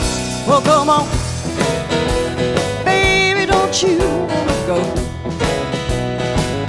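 Live band music: a Telecaster-style electric guitar playing bending lead notes over a strummed acoustic guitar, an instrumental intro with a steady beat.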